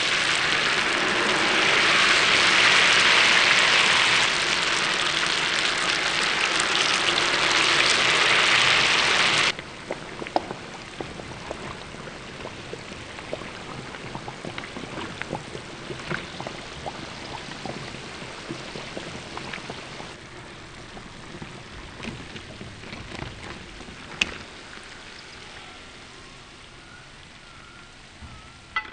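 Battered banana slices deep-frying in hot oil: loud, dense sizzling, then after a sudden cut about nine seconds in, a quieter sizzle dotted with small crackles and pops.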